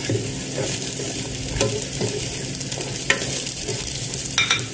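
Chopped onion sizzling in hot oil in a nonstick pot, with a spatula stirring and knocking against the pan a few times.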